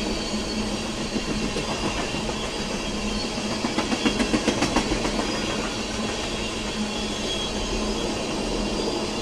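Freight train of oil tank cars rolling past with a steady rumble. About four seconds in, a quick run of wheel clacks sounds over the rail joints.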